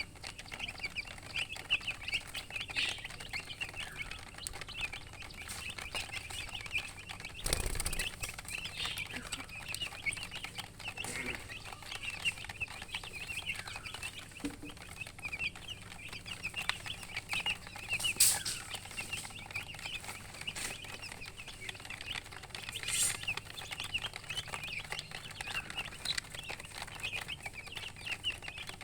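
Baby chicks peeping nonstop, many short high chirps overlapping, with a single thump about seven and a half seconds in.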